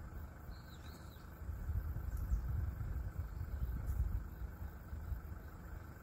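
Low, uneven outdoor rumble, with a couple of faint high bird chirps about half a second to a second in.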